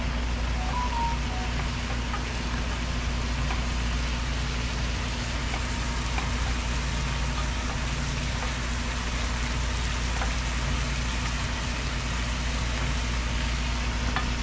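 Steady low hum with an even hiss over it and a few faint clicks: pots cooking on a stove.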